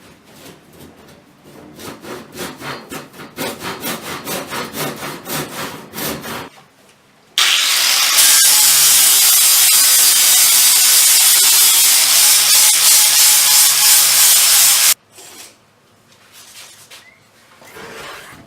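Hand saw cutting wood in quick back-and-forth strokes, about three a second. After a short pause a power tool starts with a loud, steady hum and noise, runs for about seven seconds, then cuts off suddenly.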